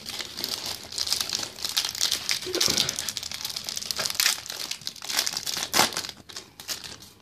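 Foil wrapper of a Topps Match Attax trading-card pack being torn open and crinkled by hand: a dense, irregular crackle with sharper rips, the loudest about six seconds in.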